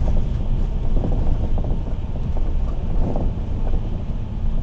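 Steady low engine and road noise inside a moving bus, heard from a passenger seat, with wind noise on the microphone.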